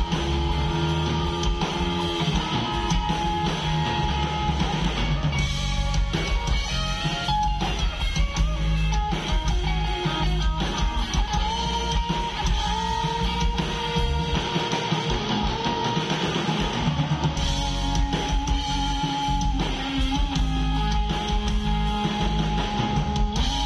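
Live rock band playing through a PA at a soundcheck: electric guitars strumming over a drum kit.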